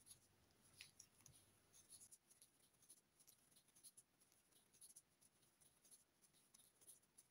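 Near silence, with faint irregular scratches and soft ticks from a crochet hook drawing yarn through the stitches.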